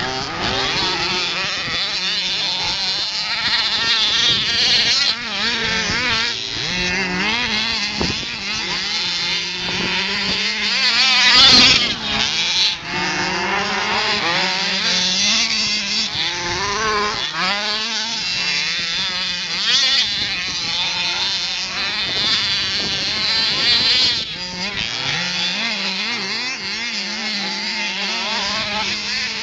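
Small two-stroke petrol engine of a 1/5-scale HPI Baja RC buggy revving up and down as it drives over sand, its pitch rising and falling constantly. It is loudest about eleven or twelve seconds in.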